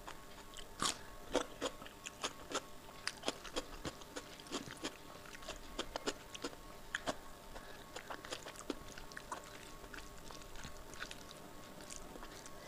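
Close-miked wet eating sounds: fingers squishing and mixing rice with kadhi (yogurt curry) on a plate, mixed with chewing. The sound comes as irregular sticky clicks, several a second.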